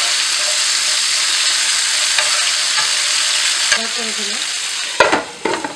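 Cauliflower florets and potato pieces sizzling in hot oil in a nonstick frying pan, stirred at first with a wooden spatula. About five seconds in come a few sharp clatters as a glass lid is set on the pan.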